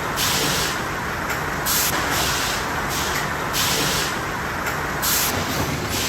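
Sawmill lumber-line machinery running: a steady mechanical din with short hissing bursts recurring irregularly, about once or twice a second.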